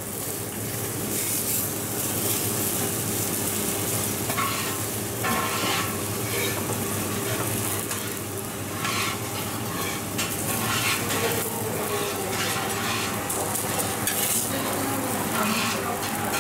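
A dosa sizzling on a flat steel griddle, with a metal spatula scraping and pressing on the hot plate now and then as the dosa is folded and cut.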